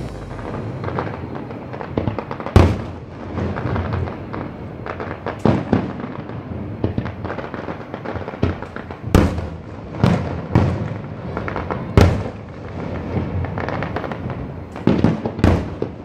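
Fireworks display: aerial shells bursting in an irregular string of booms, with crackling between them. The loudest bangs come about two and a half seconds in, about nine seconds in and about twelve seconds in.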